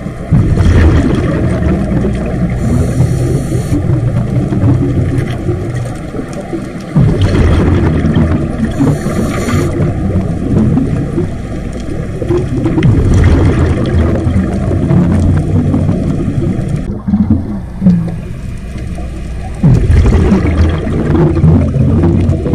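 Underwater sound of a scuba diver breathing through a regulator. Exhaled bubbles rumble loudly in a burst about every six or seven seconds, with a brief hiss between them.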